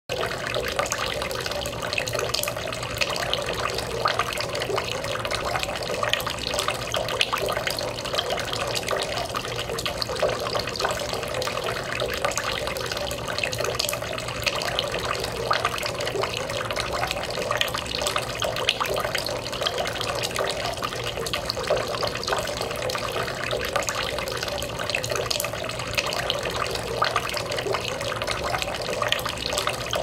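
Fiberglass shell-basin garden fountain: a thin stream of water pours from a small shell held by the fairy figure into the basin below, a steady splashing trickle.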